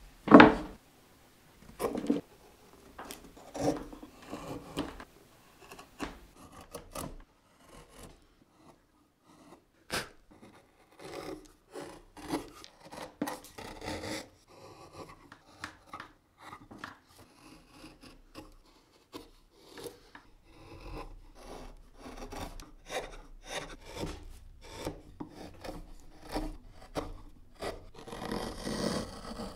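Hand carving gouge cutting into basswood in short, irregular strokes, each slicing off a curled shaving. There is a loud wooden knock right at the start and another about two seconds in.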